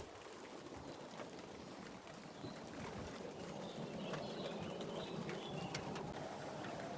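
Steady rain, with many scattered drops ticking close by. A bird calls faintly in short wavering phrases around the middle.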